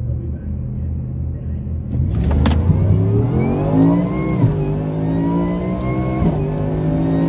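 Supercharged V8 at wide-open throttle in a drag-race pass. A low steady rumble gives way about two seconds in to hard acceleration, the pitch climbing with a whine above it. The pitch drops sharply at an upshift about halfway through and again near the end.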